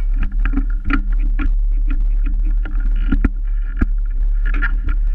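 Small two-stroke engine of a Yamaha PW children's minibike idling steadily, close to the microphone, with frequent knocks and rattles over it.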